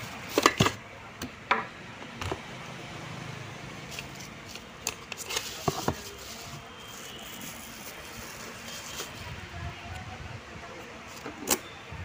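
Cardboard packaging and plastic-wrapped ceiling-fan parts being handled in a box: scattered short knocks, scrapes and crinkles, clustered in the first couple of seconds and again about five seconds in, over a steady low background noise.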